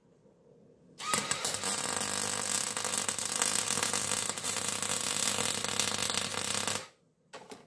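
Electric arc welding: a steady crackling arc joining a steel axle tube, sleeved tube-in-tube. It strikes about a second in, runs for nearly six seconds and cuts off suddenly, with one short restrike just after.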